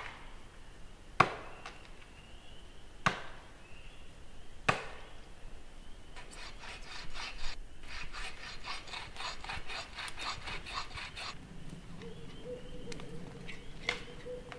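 Hand tools cutting a tree: four sharp chopping blows into wood, about a second and a half apart, then about five seconds of quick, even saw strokes.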